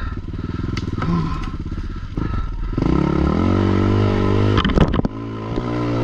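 Avantis 250 enduro motorcycle engine pulling over rough forest ground, with revs rising about three seconds in. A few sharp knocks near five seconds in, then the engine pulls on.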